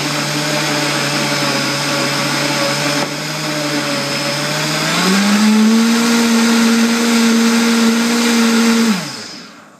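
Vita-Mix blender motor running, blending a banana, carrot-juice and almond-milk smoothie. About five seconds in it speeds up to a higher, louder pitch, then winds down with a falling pitch and stops near the end.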